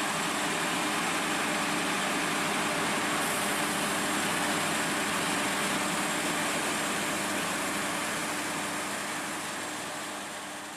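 Steady rushing vehicle noise with a faint low engine hum underneath, unchanging in pitch, fading out near the end.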